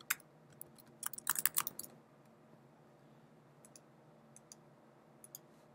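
Typing on a computer keyboard: a quick flurry of keystrokes about a second in, followed by a few faint, sparse clicks.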